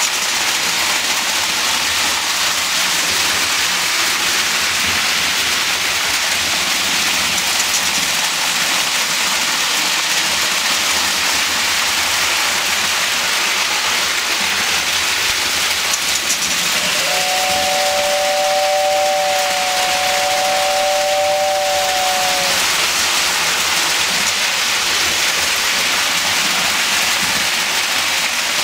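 Lionel model trains running on tinplate three-rail track, a steady rolling hiss and rumble of wheels and motors. About halfway through, a train sounds a two-note whistle held for about five seconds.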